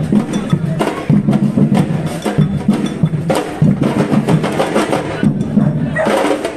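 Live percussion music: drums and sharp wood-block-like strikes playing a fast, steady rhythm.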